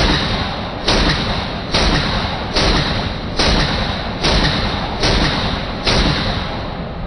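A gun fired eight times in a steady rhythm, about one shot every 0.85 seconds, each report loud and trailing off before the next.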